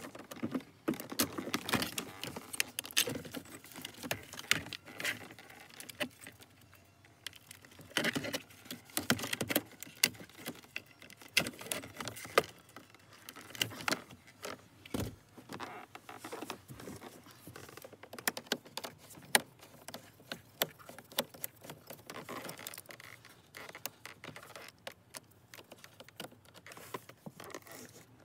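Hard plastic centre console trim of a 2012 Kia Optima being pried and pulled loose by hand: irregular clicks, knocks and rattles of plastic clips, panels and connectors.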